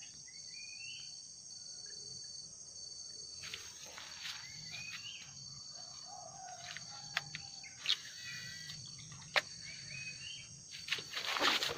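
A steady, high-pitched chorus of crickets or similar insects, with a few bird chirps over it. Several sharp clicks come in the second half.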